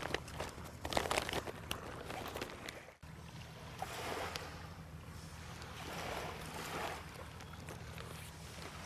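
Sail cloth rustling and crinkling, with small sharp clicks, as the sail is wrapped around the mast. After about 3 s this gives way to a soft outdoor wash of wind and small waves that swells now and then.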